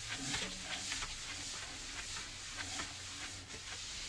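A cloth rubbing back and forth over the steel table top of an Excalibur scroll saw, a soft scrubbing hiss of quick strokes, as the plate is cleaned with Windex.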